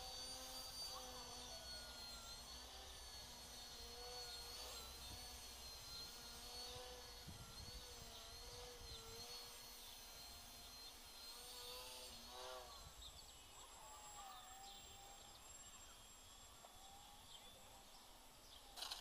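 Faint whine of an FPV quadcopter's electric motors, its pitch wavering up and down with the throttle and sweeping quickly up and down about twelve seconds in.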